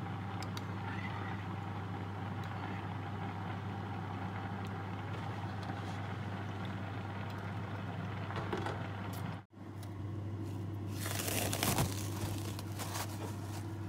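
A steady low mechanical hum runs throughout, over soft sounds of a metal spoon stirring a thick creamy dessert in a glass bowl. The sound cuts out for a moment about halfway through, then plastic cling film crinkles loudly for a second or so.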